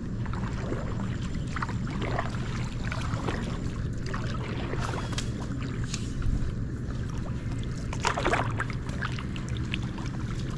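Water lapping and sloshing against a small wooden boat over a steady low rumble, with scattered light ticks and a brief splashy sound about eight seconds in.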